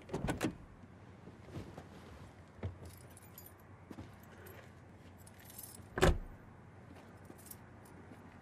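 A car door opening with clicks and keys jangling, then the door shut with a solid thud about six seconds in, the loudest sound.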